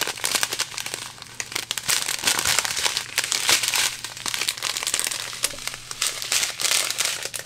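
Crinkling of clear plastic diamond-painting drill bags as a strip of joined packets is handled and shifted between the hands, many small crackles coming one after another.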